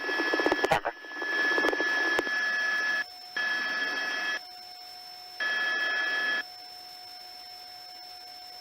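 Police two-way radio: a short, garbled voice transmission, then three bursts of open-channel hiss of about a second each as the radio is keyed. After that comes a faint steady hum with a thin constant tone.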